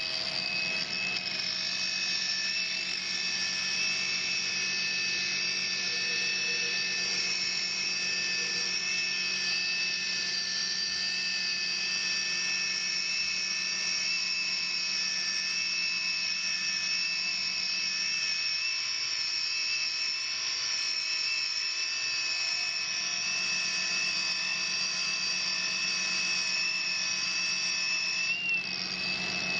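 G3610DA stone polisher running steadily with a wet #500 ceramic polishing pad on black granite, giving a constant high-pitched motor whine over a low hum.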